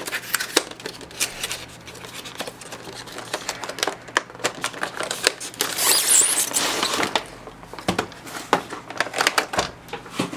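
Cardboard window box and clear plastic packaging tray being handled: scattered clicks and taps, with a longer scraping rustle about six seconds in as the plastic tray slides out of the box.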